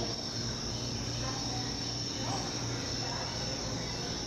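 Crickets chirring steadily in one continuous high-pitched trill, over a low steady room hum.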